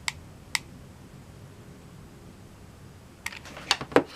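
Small sharp clicks and taps of craft items being handled on a tabletop: two single clicks in the first second, then a quick cluster of clicks and taps about three seconds in.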